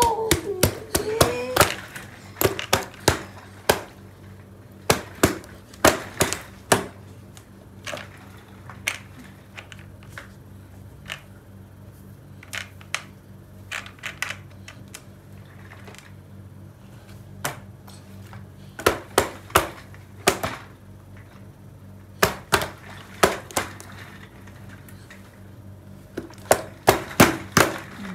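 Irregular sharp taps and knocks of hard objects, often in quick clusters of several in a row, over a steady low hum. A short gliding voice-like sound comes right at the start.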